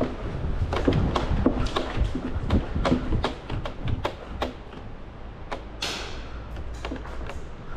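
Airsoft skirmish: many sharp, irregular cracks and snaps, close together in the first half and sparser later, over a low rumble. About six seconds in there is a short hiss.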